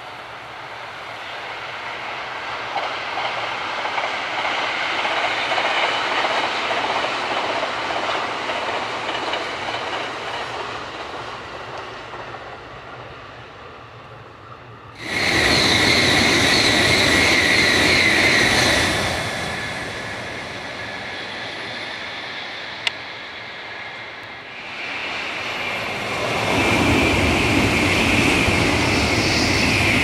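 Passing trains: a JR limited express on the Tokaido Main Line swells and fades in the distance. About halfway in, a much louder Tokaido Shinkansen passage starts suddenly, with a steady high whine. The Shinkansen sound dips briefly and then swells again near the end.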